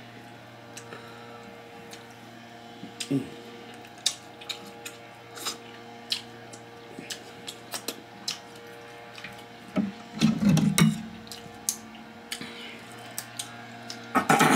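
King crab shell cracking and snapping as it is peeled apart by hand, with wet chewing, over a steady low hum. Near the end, kitchen scissors cut into a king crab leg with a loud crunch.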